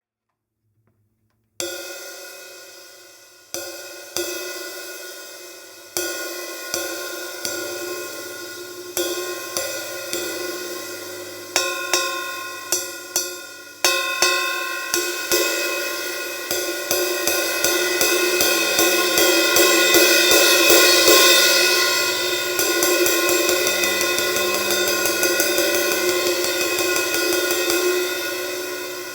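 A 1960s A. Zildjian 20-inch sizzle ride cymbal (1867 g) being played with a stick. It starts with single strikes left to ring out and fade, the strikes come closer together, and from about halfway it settles into a steady, fast ride pattern with the cymbal's wash building up.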